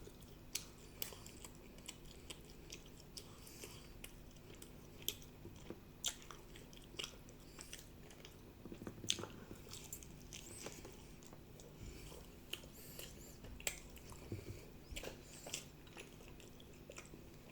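A person chewing and biting into a spicy chicken leg close to the microphone: faint, irregular wet clicks and small crunches, with a steady low hum behind them.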